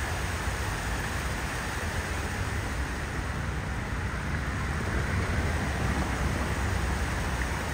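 Steady, even rushing noise with a deep rumble underneath, unbroken throughout.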